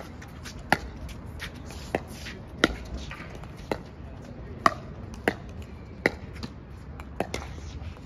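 Doubles pickleball rally: a hard plastic pickleball popping off paddles and the court, about nine sharp pops spaced a half second to a second apart, with fainter taps between.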